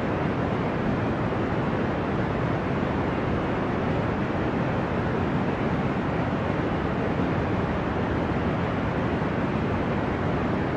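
Deep, ocean-like white noise for sleep: an even, unchanging hiss weighted toward the low and middle range, with little above about 3 kHz and no surges or breaking waves.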